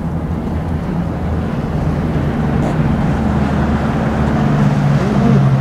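Low, steady engine drone, growing gradually louder toward the end.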